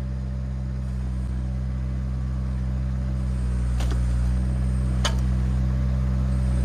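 Kubota mini excavator's diesel engine running steadily as it works the hydraulics, slowly getting louder. Two short sharp clicks come about four and five seconds in.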